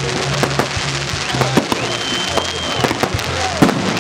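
Fireworks display: a rapid run of bangs and crackling pops, with a high steady whistle for about a second midway.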